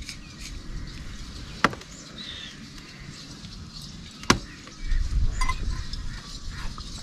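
Steel bowls and plates clinking and scraping as food is moved between them by hand, with two sharp clinks, about one and a half and four seconds in. A low rumble comes in about five seconds in.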